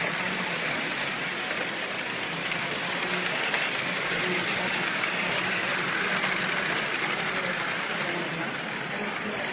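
Three-rail model trains running around a layout, a steady rolling rattle and hiss of wheels on metal track, amid the background hubbub of a busy hall.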